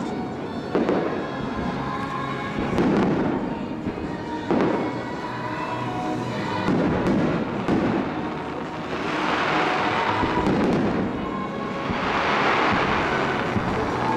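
Aerial fireworks shells bursting overhead in a steady string of booms, with two longer spells of crackling stars later on. Faint show music from distant park loudspeakers plays underneath.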